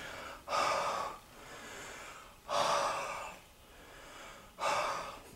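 A person breathing out hard onto a goggle lens three times to fog it up, with quieter in-breaths between.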